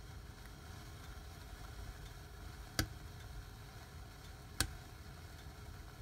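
Fireplace fireworks burning in the hearth with a low steady rumble, and two sharp cracks a little under two seconds apart near the middle.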